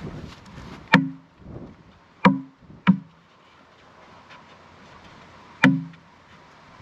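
Nails being driven into a wooden frame: four sharp, resonant knocks, two close together in the middle.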